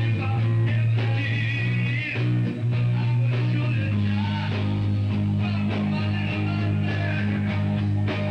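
Rock band playing: guitar over sustained bass notes, the bass moving to a new note about four seconds in.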